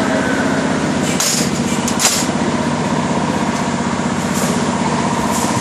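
Steady drone of machinery running, with a low hum and a thin high tone, and a single sharp click about two seconds in.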